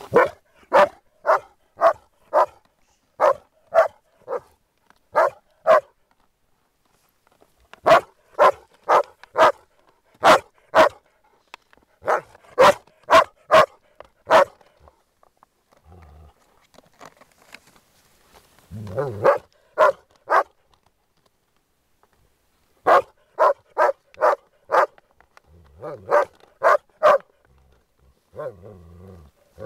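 Groenendael Belgian shepherd barking in runs of three to seven sharp barks, about two a second, with pauses between runs: play barking over a guarded plastic bottle. A few lower, rougher sounds come between the later runs.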